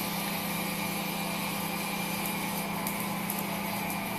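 Hydraulic drive of a remote-controlled tracked tank-cleaning robot running with a steady hum as its maneuvering arm raises the sprinkler head.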